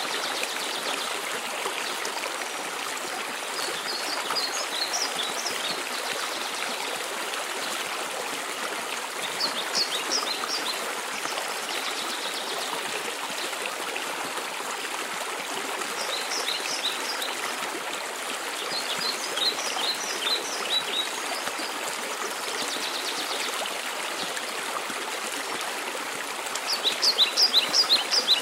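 Waterfall rushing steadily, with a songbird singing short phrases of quick, high, down-slurred notes every few seconds, the loudest phrase near the end.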